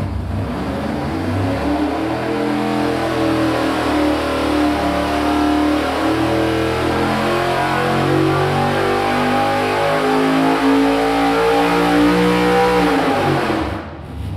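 Carbureted GM 4.8-litre LS V8 with an Edelbrock single-plane intake and VR-S carburetor, run wide open in an engine-dyno power pull. It holds steady for a couple of seconds, then climbs steadily in pitch as it accelerates up the rev range, and drops away near the end as the throttle closes and the revs fall.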